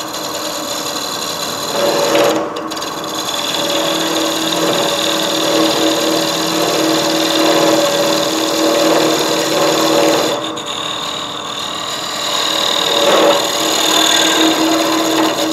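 Wood lathe running, with a turning tool cutting a tenon on the spinning wooden workpiece: a steady motor hum under the rough scrape of the cut. The cutting eases briefly about two seconds in and again around ten seconds in.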